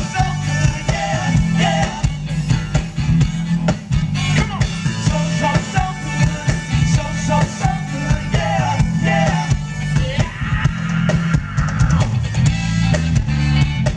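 Live soul-funk band playing a steady groove on drum kit, bass and electric guitars, with a wavering melody line over it.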